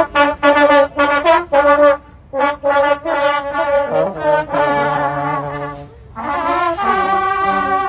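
Brass music: a melody of short, detached notes for about two seconds, then longer held notes, with a brief break about six seconds in.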